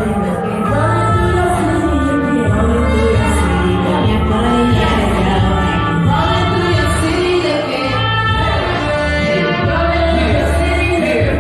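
Live band music with a heavy bass line under sustained melodic lines, with singing.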